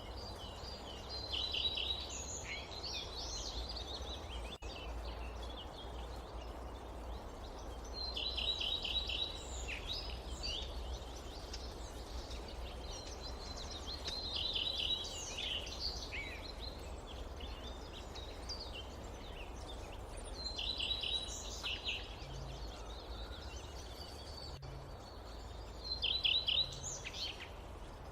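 A songbird singing a short phrase of rapid high trilled notes, repeated five times about every six seconds, over a steady low background rumble.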